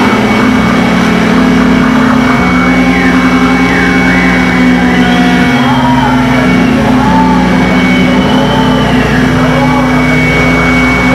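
Loud, dense experimental electronic noise: low droning tones that hold, then step to a new pitch every second or two, under warbling glides that sweep up and down higher up, with a thin steady high tone running through.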